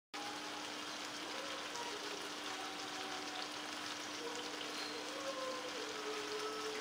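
Sliced beef frying in thick chili paste in a wok, a steady sizzle.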